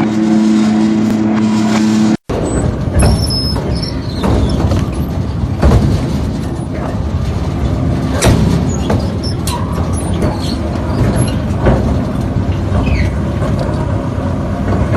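A machine running with a steady hum. After a cut, a crushing machine grinds and crunches material with a heavy rumble, broken by many sharp cracks and snaps.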